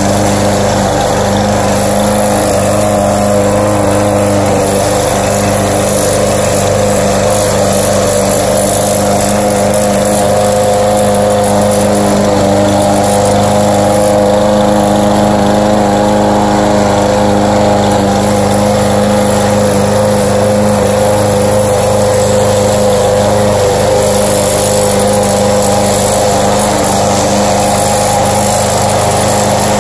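Gasoline walk-behind rotary lawn mower running steadily while cutting grass, its engine holding an even note.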